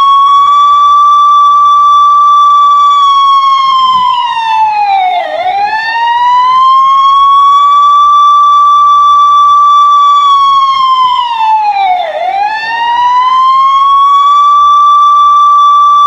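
Police car siren in a slow wail: the tone climbs to a held high note, then slides down and back up, dipping twice about seven seconds apart.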